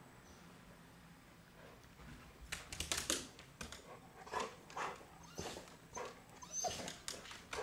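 A Chow Chow dog whimpering in a string of short bursts, about two a second, starting about two and a half seconds in.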